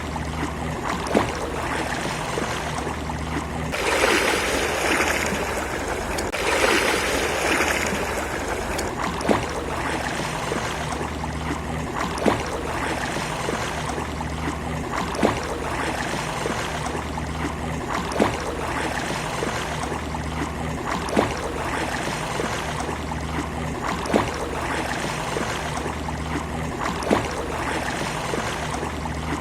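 Ocean surf washing steadily on a beach, with two waves swelling louder about four and six-and-a-half seconds in. A short, sharp click recurs about every three seconds over the surf.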